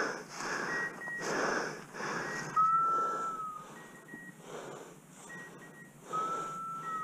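Heavy breathing from a person on foot, a rasping breath about once a second. Two steady high tones, each about a second long and dipping at the end, sound over it, along with fainter short high beeps that repeat every second or two.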